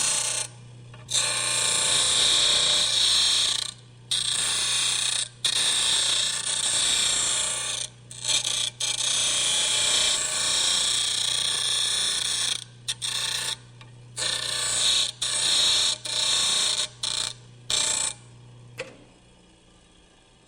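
Wood lathe electric motor running with a steady hum and a loud whirring hiss. The hiss breaks off abruptly and comes back several times. The motor shuts off about a second and a half before the end and the sound dies away.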